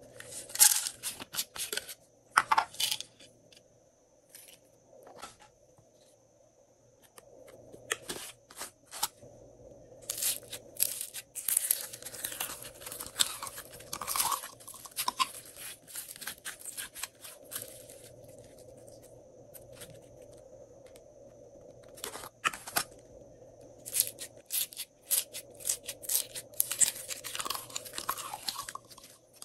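Glossy slime being squeezed out of small clear plastic tubs, crackling and popping in several bursts with short pauses between, along with the handling of the plastic tubs.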